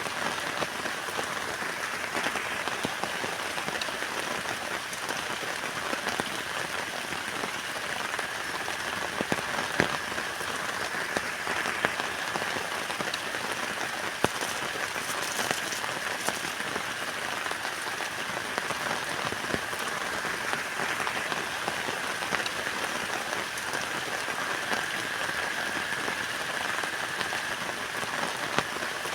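Heavy rain falling steadily on a tent, a dense patter of drops with a few louder single drop hits scattered through.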